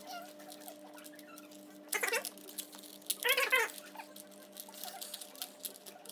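Plastic Rubik's cube layers clicking and rattling in quick, irregular runs as the cube is turned during a solve. A short breathy burst about two seconds in and a brief wavering whine a little after three seconds stand out above the clicks.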